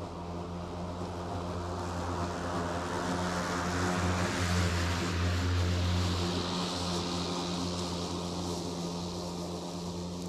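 EGO cordless electric push mower running and cutting grass, a steady motor hum with the hiss of the blade and clippings. It grows louder as it passes close by about five seconds in, then fades as it moves away.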